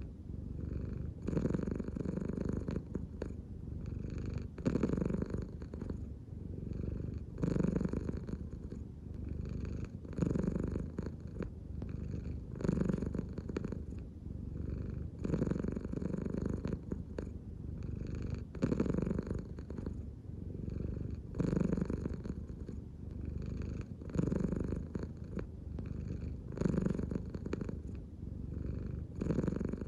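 American Shorthair cat purring steadily, the purr swelling louder in a slow rhythm about every two and a half to three seconds as it breathes in and out.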